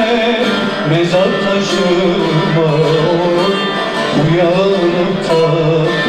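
A man singing a Turkish folk song (türkü) in a long, wavering vocal line, accompanied by a bağlama (long-necked saz).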